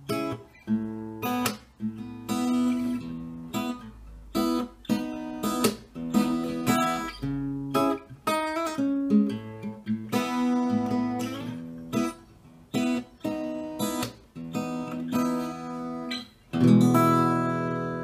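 Seagull Natural Elements Amber Trail acoustic guitar, cedar top with cherry back and sides, played folk style: picked chords and single notes in a steady flowing pattern. Near the end a full strummed chord is left ringing.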